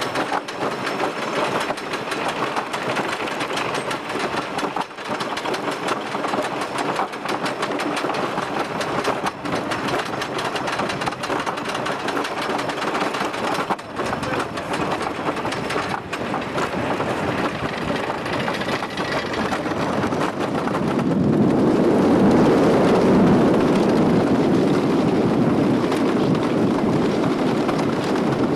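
Wooden roller coaster train climbing the lift hill, its lift chain and anti-rollback ratchet clattering in rapid clicks. About 20 seconds in it drops off the crest, and the clicking gives way to a louder rumble of wheels on the wooden track.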